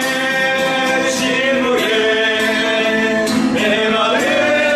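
Music: a song with a voice singing held notes over plucked guitar.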